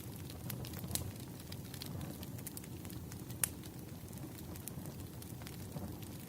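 Wood campfire burning with a steady low rush of flame and irregular sharp crackles and pops from the logs, one louder pop about three and a half seconds in.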